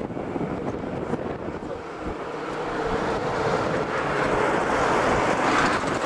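A road vehicle approaching, its engine and tyre noise growing steadily louder over the last few seconds.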